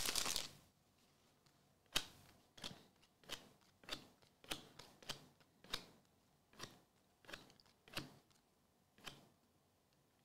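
Foil card-pack wrapper crinkling, stopping about half a second in, then a dozen or so sharp clicks spaced well under a second apart as chrome trading cards are flipped one at a time through a stack in the hands.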